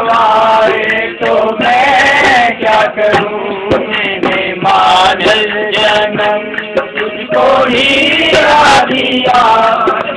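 Male voices singing a Hindi devotional bhajan together, accompanied by dholak drum strokes and a harmonium.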